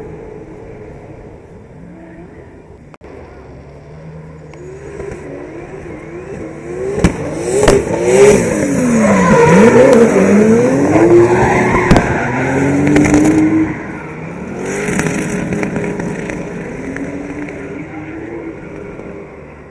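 Drift car's engine revving up and down in quick swings as it slides past with tyre squeal, growing louder, loudest in the middle, then fading. A few sharp cracks cut through at the loudest part.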